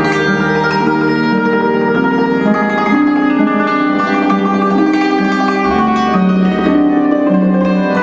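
Harp music: a melody of plucked notes that ring on and overlap over a low line of changing bass notes.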